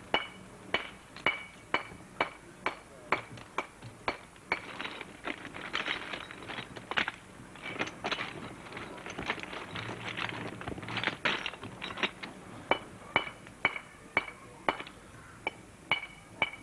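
Hand hammer striking stone, about two blows a second, each a sharp clink with a short metallic ring. The blows come thicker and less evenly in the middle. A mason is dressing building stone by hand.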